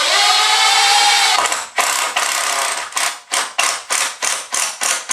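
Power drill driving a screw at an angle into a wooden stud: a steady run of about a second and a half with its pitch slowly rising, then a series of short pulses, about three to four a second.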